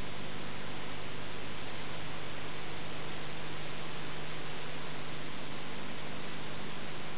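Steady hiss with an electrical hum underneath, unchanging throughout: the noise floor of an old film-to-video transfer, with no other sound in it.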